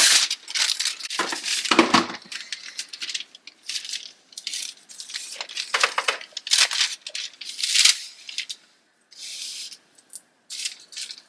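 Wax paper crinkling and rustling in short, irregular bursts as it is handled, loudest early on and thinning out with brief gaps.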